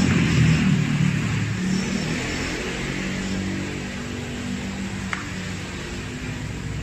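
Aluminium welding arc buzzing steadily on the cracked stand mount of a Honda Vario engine case, a hum with a hiss over it. The weld is burning through, leaving a hole in the thin casting.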